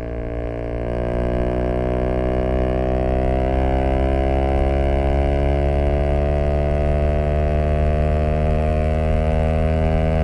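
Zontes U125 scooter's 125 cc engine pulling under throttle through an aftermarket Black Widow exhaust, its note climbing slowly over the first few seconds and then holding high and steady.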